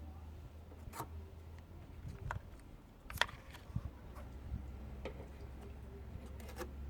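Low steady drone of a 2010 Toyota Yaris engine running, heard from inside the car, on an engine flagged for a misfire. Scattered light clicks and ticks sit on top of the drone.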